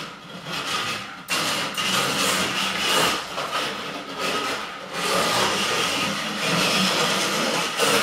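Vintage 1/24 scale slot car with a padlock-style motor in a brass kit chassis running around a routed track: a steady motor whine under the scraping of its stiff steel guide braid and hard rear tires on the slot and rails. It gets louder about a second in and again about five seconds in.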